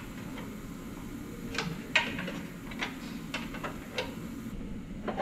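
Scattered metal clinks and knocks, the loudest about two seconds in, from a pry bar and hand tools worked against the front differential's mounting bushing and bolt on a 2005 Toyota Tundra, levering the stuck differential to free it.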